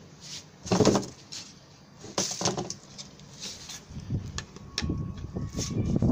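A composite-panel planter box being handled and moved, with scattered knocks, bumps and scrapes of the thin panel walls; the loudest knock comes about a second in.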